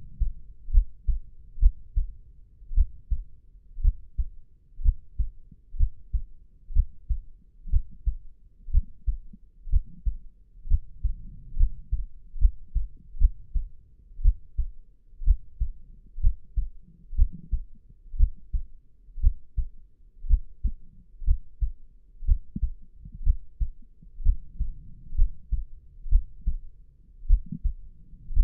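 Slow, steady human heartbeat: paired lub-dub thumps about once a second, deep and low-pitched.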